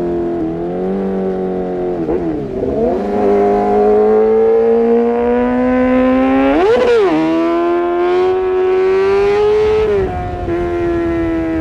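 Kawasaki ZX-6R inline-four running through an Arrow Pro-Race exhaust, its engine note dipping and then slowly climbing. A quick, sharp rev spike comes about seven seconds in, and the revs drop near the end.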